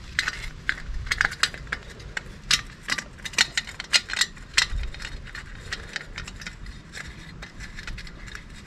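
Small, irregular clicks and taps of a carbon-fibre exhaust heat shield, its bolts and washers knocking against the exhaust pipe as the bolts are threaded in loosely by hand. The taps are thicker in the first half and sparser later.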